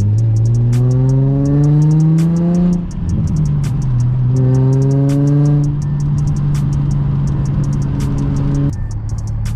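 Car exhaust with Berk non-resonated test pipes and a Megan Racing single-exit muffler, nearly straight-piped, under hard acceleration: the engine note climbs, breaks at a gear change about three seconds in, climbs again, then drops off as the throttle lifts near the end. Background music with a steady beat plays along.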